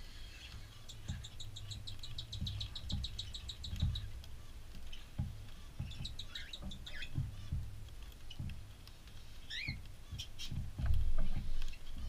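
Cockatiels chirping: a fast trill of evenly repeated high chirps about a second in, later scattered chirps and a short wavering whistle. Low knocks and rumbles close to the microphone run under them, loudest near the end.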